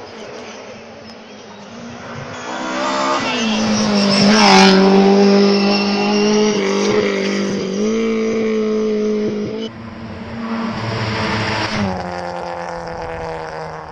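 Rally car engines at high revs: one rises in pitch as it comes on, is loudest about four to five seconds in, then holds a steady high note. The sound breaks off abruptly near ten seconds to another car running hard, which drops in pitch near twelve seconds.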